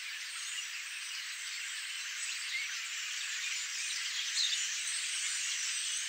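Dense chattering of a large flock of common starlings gathering to roost, countless calls blending into a steady high hiss that grows slightly louder toward the end.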